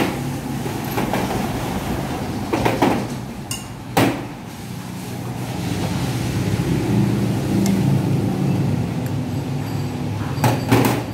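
Metal parts of a diesel injection pump clinking and knocking as it is worked apart in a vise, a few sharp knocks, the loudest about four seconds in and two more near the end, over a steady low machine hum.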